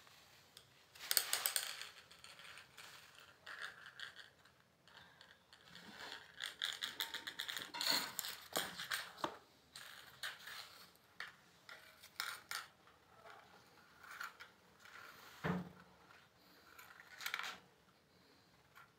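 A bangle clattering and scraping on a hard stone floor as kittens bat it about. The sound comes in irregular runs of quick rattling clicks, loudest about a second in and again around eight seconds in.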